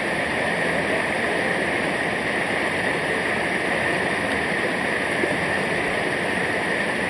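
Waterfall water rushing in a steady, unbroken roar.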